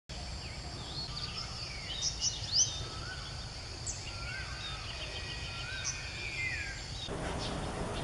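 Several birds calling in the open: sharp high chips about two seconds in, short rising whistled notes repeated every second or so, and a long drawn whistle near the end, over a steady high-pitched drone. Near the end the background changes to a broader hiss.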